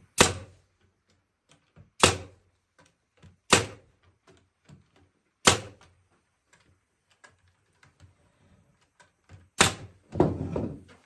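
Trim nails being driven into oak: five loud, sharp single shots about two seconds apart, with faint small knocks between them.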